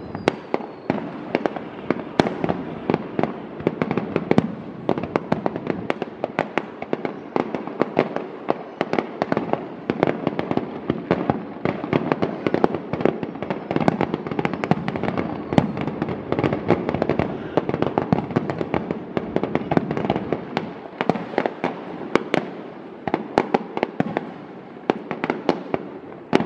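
Fireworks display: a rapid, unbroken stream of sharp bangs and crackles, several bursts a second.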